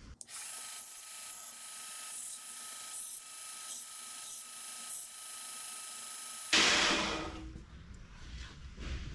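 Belt grinder rounding the edges of a small welded steel die: a steady grinding hiss with a faint whine. It stops abruptly about six and a half seconds in with a short louder burst that fades.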